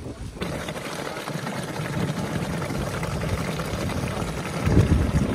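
Steady rush of running water from a volcanic thermal stream, with a burst of low rumble near the end.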